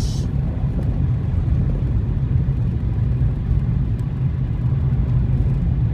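A steady low rumble inside a small front-wheel-drive car driving slowly on a snow-covered road. Engine and tyre noise are heard together, with the car held in second gear at about 25 mph.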